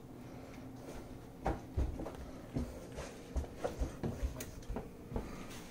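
Scattered light knocks, clicks and soft thumps of hands and kitchenware being handled, about a dozen separate strokes with no steady rhythm.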